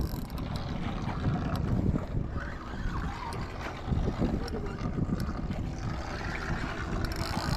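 Wind buffeting the microphone on a boat deck: an uneven low rumble that swells and dips.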